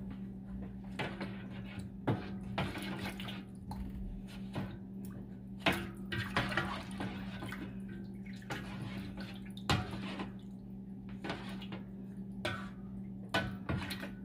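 Water sloshing and splashing as a plastic spoon stirs turkey pieces in an enamelled roasting pan, with scattered knocks and scrapes of the spoon on the pan. A steady low hum runs underneath.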